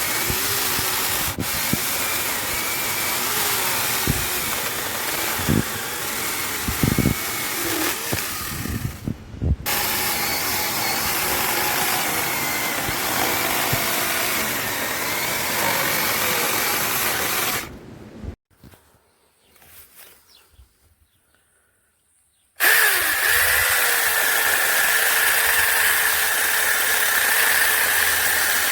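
Small cordless electric chainsaw running, a steady high motor whine over chain noise, heard in separate stretches with abrupt cuts. It drops out to near silence for about four seconds in the middle, then comes back with a steadier, higher whine.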